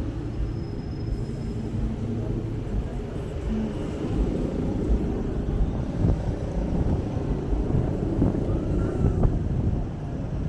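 City street traffic: car engines running close by, a steady low rumble.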